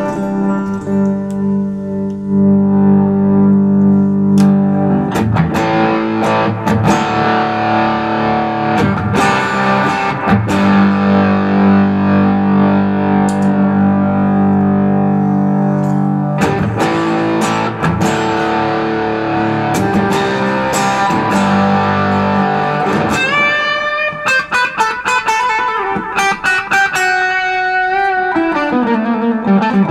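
Telecaster-style electric guitar played through an amp: ringing chords at first, then, a bit over twenty seconds in, a run of quick single-note lead lines.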